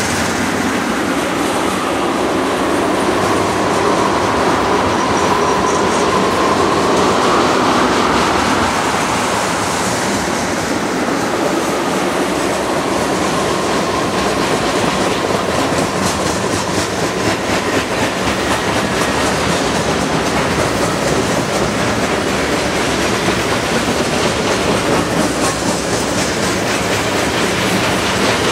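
Freight cars (tank cars and covered hoppers) rolling past close by: a steady rumble of steel wheels on rail with rhythmic clickety-clack over the rail joints. A faint high squeal runs through the first ten seconds or so.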